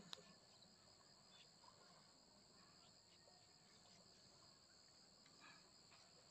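Faint, steady, high-pitched insect chorus with a few faint clicks; otherwise near silence.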